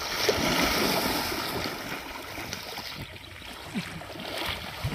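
Water churning and sloshing around elephants as they wade and swim through a shallow pond. It is loudest for the first couple of seconds and eases off after about three seconds.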